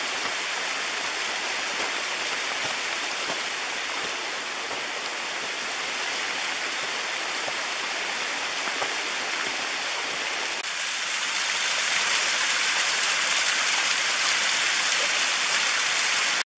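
Water from a small cascade splashing steadily down a bare rock face. The rushing gets louder about two-thirds of the way through, as the sound comes closer to the falling water.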